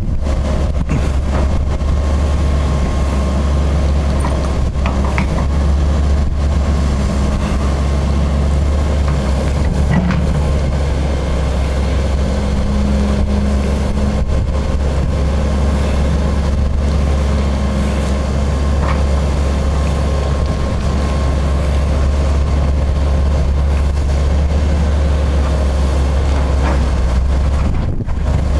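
Heavy diesel equipment running steadily at close range: a deep, even engine rumble from the utility boom truck holding the pole and the excavator backfilling around its base.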